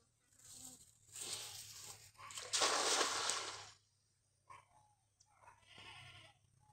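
A weighted cast net thrown into a river: a rushing swish as the net flies out, then a louder splash of about a second as it lands spread on the water.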